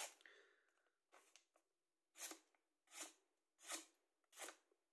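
Karambit knife blade slicing through a sheet of paper: a series of short, crisp cuts, roughly one every three-quarters of a second, as the factory edge is tested for sharpness.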